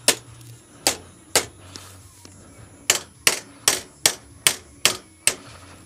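Hammer striking the edge of a galvanized sheet-metal seat base to bend it a little at a time: about ten sharp strikes, three spaced blows, a pause, then a quick even run of seven at about two and a half a second.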